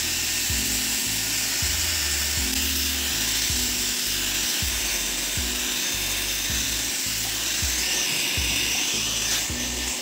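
Dyson Airwrap running as a blow dryer through an add-on smoothing nozzle: a steady rush of air with a slightly hollow tone. Background music with a steady bass beat plays under it.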